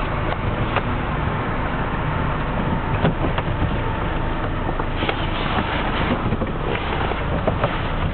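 Van engine running as the van manoeuvres slowly, heard from inside the cab, with a few light clicks and knocks.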